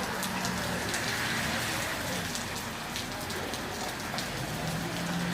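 Steady rain-like patter: an even hiss dotted with many small ticks, with a low hum coming in near the end.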